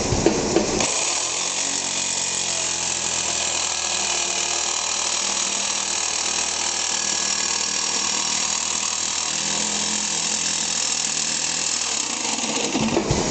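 Jigsaw with a Bosch T123X progressive-tooth metal blade sawing through 1/8-inch bronze sheet: a steady, harsh machine buzz. It settles into its even run about a second in and stops near the end.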